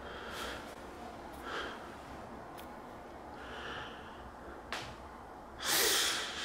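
A man breathing through his nose in short puffs, with a single click a little before the end and then one loud, forceful breath out.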